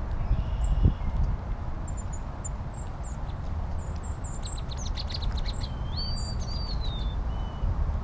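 Wild songbirds calling: a run of short high chips, then about five seconds in a quick series of notes followed by a whistled call that glides up and down, over a steady low rumble.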